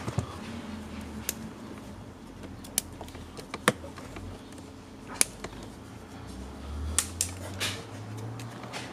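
Nylon zip-tie tails being snipped off with side cutters: several sharp snips and clicks spread through, with quieter handling of wires and plastic between them.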